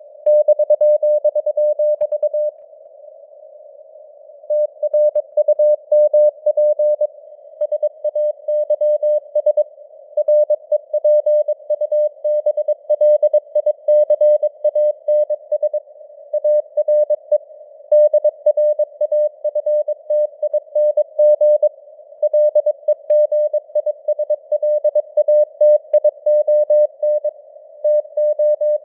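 Morse code (CW) at 22 words per minute: a single-pitch tone keyed in dots and dashes over narrow band radio hiss, the signal strength fading up and down (QSB) as on a real shortwave band. There is a pause of about two seconds near the start before the keying resumes.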